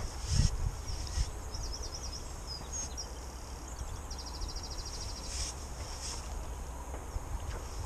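Wind rumbling on the microphone, with small birds chirping high. Around four seconds in, one fast, even trill lasts just under a second.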